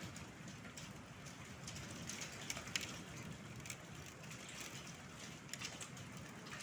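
Storm of wind, rain and hail: a steady rush with irregular sharp ticks of hailstones striking.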